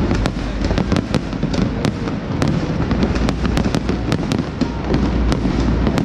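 Fireworks display: a dense run of sharp cracks and bangs, several a second, over a continuous low rumble of bursting shells.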